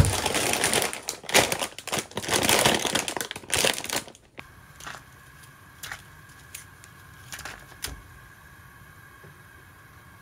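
Plastic pasta package crinkling loudly as it is handled and opened, stopping abruptly about four seconds in. After that, a few faint taps and small splashes as nests of dried tagliatelle are dropped into a pot of boiling water.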